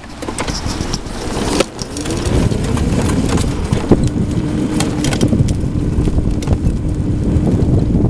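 Pride Celebrity X3 mobility scooter under way, with heavy wind noise rushing on the microphone. From about two seconds in, a drive-motor whine rises and then holds steady, over scattered sharp clicks and knocks.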